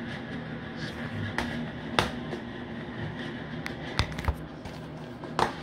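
A few sharp plastic clicks and knocks from a DVD case being handled and opened, the loudest about two seconds in and again near the end, over a steady low hum.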